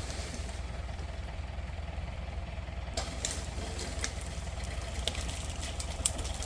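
Tractor engine idling with a low, steady hum, with a few faint clicks over it.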